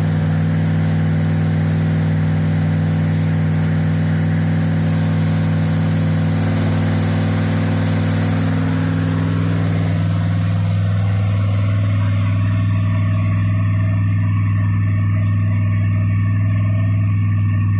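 Freshly rebuilt 1972 Pontiac 350 V8 running steadily at idle, with a deep, even note; about halfway through the sound becomes duller as the higher hiss drops away.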